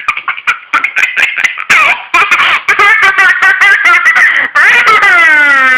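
A young child squealing and vocalising in a high voice without words, ending in one long whining call that falls in pitch and then holds.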